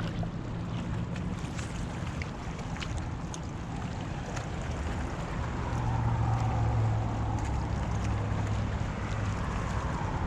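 Boat on the water: a steady low engine-like hum with wind and water noise, swelling a little midway, and a few faint clicks.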